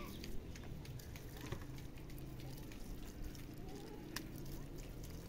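Gloved hands handling pomegranates in a plastic crate: scattered small clicks and knocks of fruit and peel against the plastic, with one sharper click about four seconds in.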